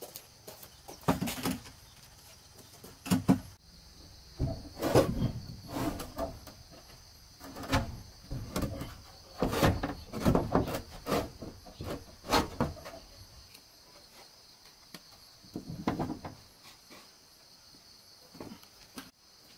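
Corrugated roofing sheets being pushed and slid over wooden rafters: irregular scrapes and knocks, several in quick runs, with a steady insect drone in the background.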